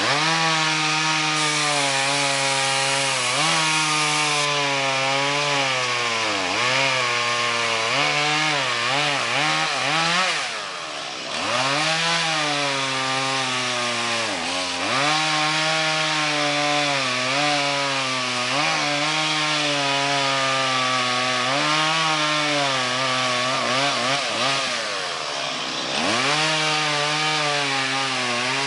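Chainsaw cutting into a tree, its engine pitch sagging under load and picking back up again and again. It eases off to a quieter, lower note briefly about ten seconds in.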